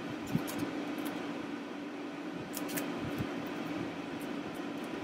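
Light clicks and scrapes of a pry tool and fingers working the thin metal shield and plastic parts of a TI-84 graphing calculator, a few scattered ticks over a steady background hum.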